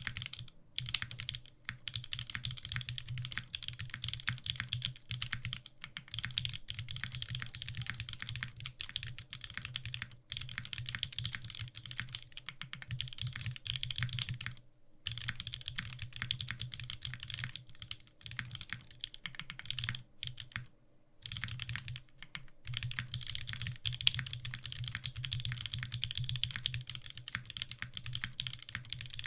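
Continuous fast typing on a WilbaTech Salvation, a leaf-spring-mounted 60% custom mechanical keyboard with hand-lubed Black Cherry Pies linear switches, tuned Durock stabilizers and GMK keycaps. Dense key strokes run on with a few brief pauses, one about halfway through and another a little later.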